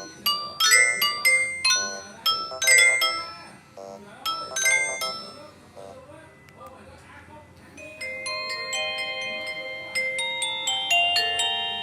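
Nokia 225 ringtones playing: a quick bell-like melody of short struck notes dies away about five seconds in, and after a quieter gap a different ringtone with held, stepping notes begins about eight seconds in.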